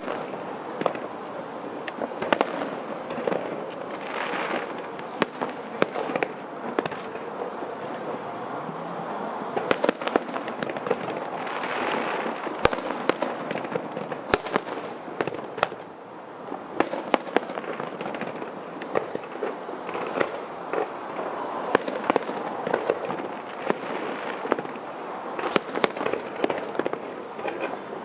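Fireworks display: aerial shells bursting in an irregular series of sharp bangs and cracks, several a second at times, over a continuous wash of noise.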